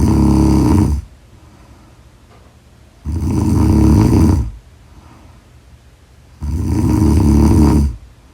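A sleeping person snoring in a slow, even rhythm: three loud, rattling snores, each lasting about a second and a half, about three seconds apart, with quiet between them.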